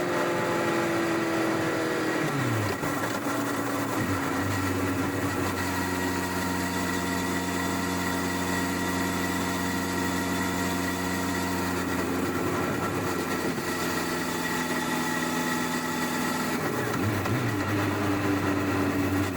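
1999 Honda CBR1100XX Blackbird's inline-four on its stock exhaust, heard from under the seat, winding down to idle in the first few seconds. It idles steadily for about twelve seconds, then picks up revs again near the end.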